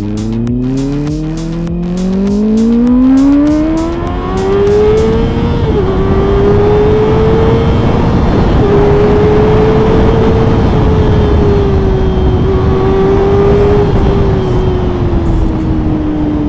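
Loud inline-four engine of a 2024 Kawasaki ZX-6R with an SC-Project SC1 aftermarket exhaust accelerating, its pitch climbing for about five seconds, then dropping briefly and holding a high, fairly steady note that sags slowly near the end. A strong rushing noise runs under the engine note.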